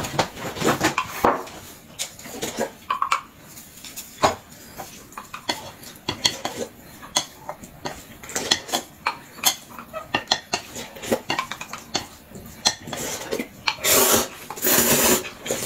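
Table eating sounds: a metal spoon clicking against a small glass cup and chopsticks tapping on plates, many small clinks throughout. Near the end come two loud, noisy slurps of noodles.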